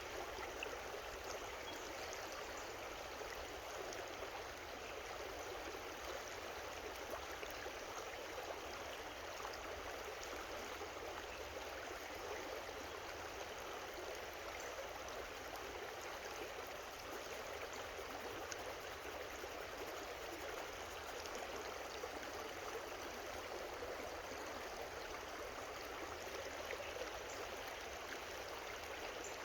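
Creek water running steadily over rocks, an even rushing babble.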